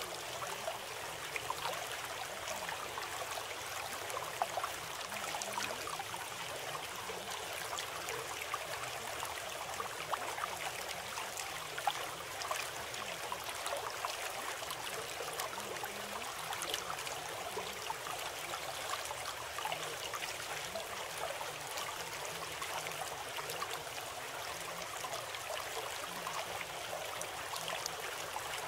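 Steady sound of running water, like a babbling stream, with constant small trickles and splashes. It is the background track of a subliminal audio program.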